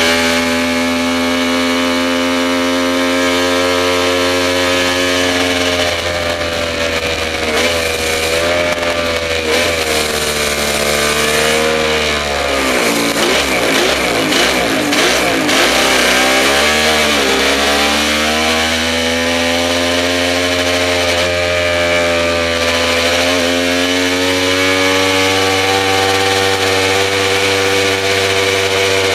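Works Kawasaki KR750 racer's two-stroke three-cylinder engine running under the rider from onboard, holding steady revs. Halfway through, the revs drop and waver for a few seconds as the rider backs off through a turn, then pick up and hold steady again.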